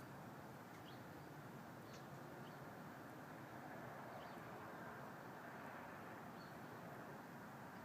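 Faint, steady outdoor rumble, the 'strange noise' heard in the sky, with a handful of brief high chirps from small birds scattered through it.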